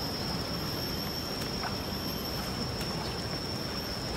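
Steady outdoor background noise: a low rumble under a constant high-pitched whine.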